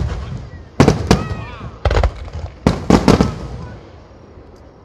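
Aerial fireworks shells bursting at a display: about six sharp booms in quick succession, each trailing off in an echoing rumble, then a quieter last second.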